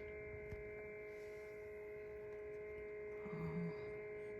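Steady electrical hum made of several steady tones, with a brief low murmured voice about three seconds in.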